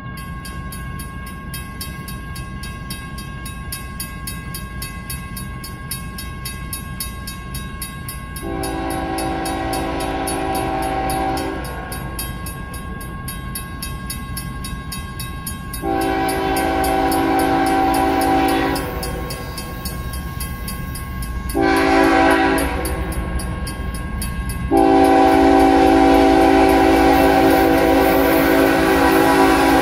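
Horn of a CSX ES44AH locomotive leading an empty coal train at track speed, sounding the grade-crossing signal as it approaches: two long blasts, a short one, then a final long one held on, each louder than the last. The horn is a chord of several notes, heard over the low rumble of the approaching train.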